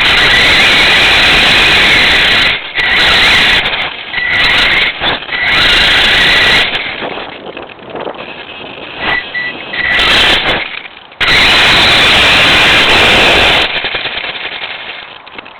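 Radio-controlled car heard from a camera mounted on it: a high motor whine over loud rattling and tyre noise, coming in bursts as the throttle is worked on and off, then dying down near the end.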